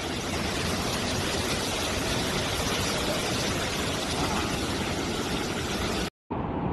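Fast, muddy floodwater rushing past in a wide torrent: a steady, dense wash of water noise that cuts off suddenly near the end.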